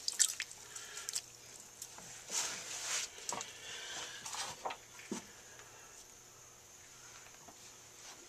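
Scattered small clicks, scrapes and wet handling noises as a freshly thrown clay cup is lifted off the potter's wheel head and set aside. The sounds thin out after about five seconds.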